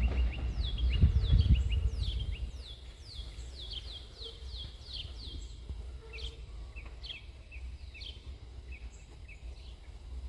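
A bird calling with quick, repeated down-slurred chirps, about two a second for the first half, then more scattered. Under it a low rumble, loudest in the first two seconds or so, dies down.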